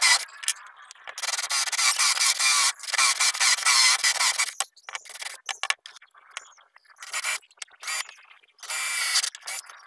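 A cordless drill drives a hole saw through wooden boards, its teeth making a rough, high scraping as they cut. The cutting starts and stops several times, with long runs in the first half and shorter bursts with quiet gaps later.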